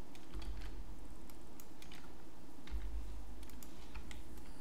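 Irregular clicks from a computer mouse and keyboard, with a low thud twice.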